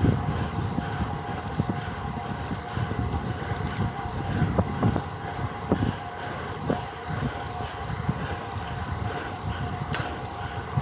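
Wind buffeting the microphone in uneven gusts, over a steady hum, with a single sharp click near the end.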